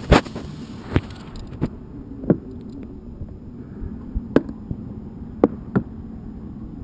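Car door trim panel being pressed home around its edge, its plastic retaining clips snapping into their holes in the door frame: about eight sharp clicks and knocks at uneven intervals, the loudest at the very start.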